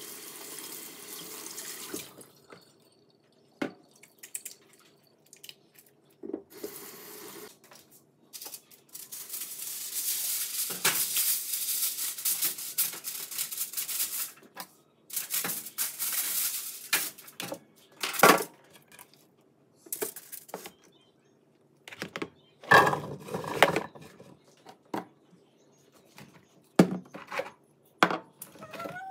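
Water running from a kitchen tap in several spells, the longest about five seconds, with knocks and clatter of dishes and pans in between.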